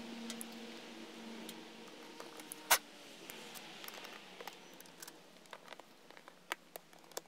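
Small clicks and ticks of a screwdriver and screws being worked on a motorcycle's plastic airbox cover, with one sharp click about three seconds in and scattered light taps afterwards. A faint low hum fades out over the first two seconds.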